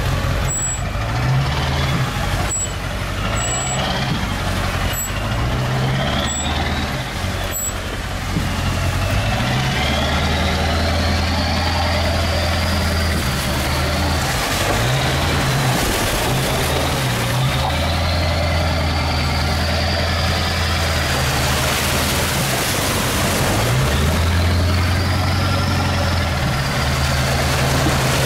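Pickup truck engine pulling along a potholed, then flooded dirt road, with water splashing against the truck. Its note and a high whine rise and fall about three times as it accelerates and eases off. Several sharp knocks in the first several seconds as it jolts over the holes.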